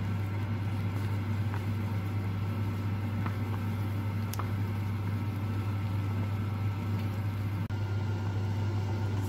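A pot of chicken breast boiling on an electric hob: a steady low hum with an even hiss over it, and a few light clicks, one about four seconds in as a wooden spoon stirs the pot.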